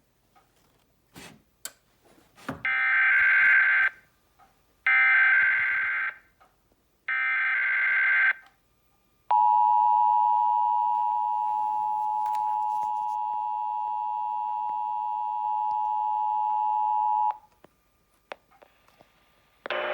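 Emergency Alert System broadcast tones: three one-second bursts of warbling SAME digital header data, a second apart, then a steady two-tone attention signal held for about eight seconds. This is the header and alert tone of an EAS Required Monthly Test.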